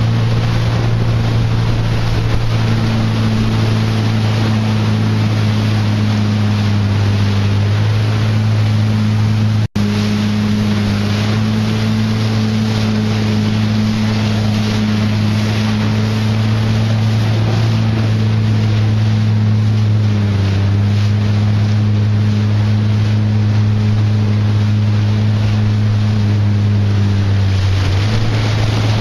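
Marine engine running at a steady pitch, with rushing water and wind noise over it. The sound cuts out for an instant about ten seconds in.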